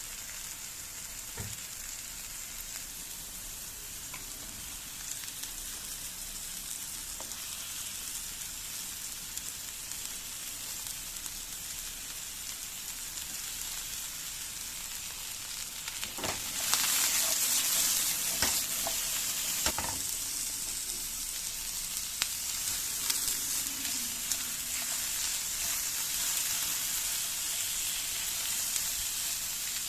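Food frying in olive oil in a hot pan: a steady sizzle that jumps louder about halfway through, with a few knocks around that point.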